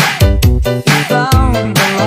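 Upbeat background music with a steady drum beat and bass line; a sliding melody line comes in about a second in.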